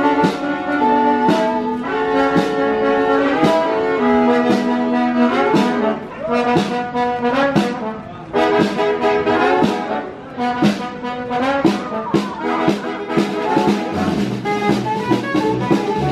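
Street brass band playing: saxophone, trumpet and sousaphone hold sustained notes over regular snare drum hits.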